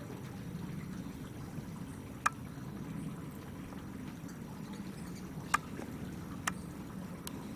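Steady low rush of flowing water, broken by four short, sharp clicks: one a little after two seconds in, two more about three and four seconds later, and a last one near the end.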